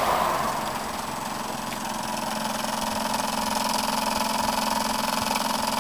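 Small steam engine running steadily on steam fed through a thin copper tube from a solar-heated boiler, giving an even hum.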